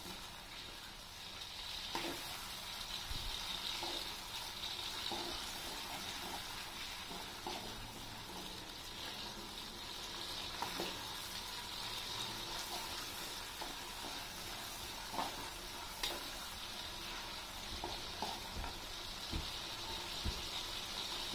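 Wet chili-and-tomato sambal paste sizzling steadily in oil in an aluminium wok as it is sautéed, with a metal spatula scraping and knocking against the wok now and then.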